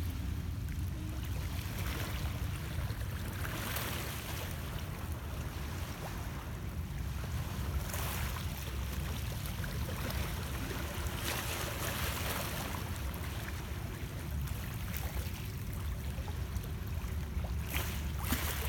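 Small lake waves lapping and splashing against shoreline rocks, a wash every few seconds, over a steady low rumble.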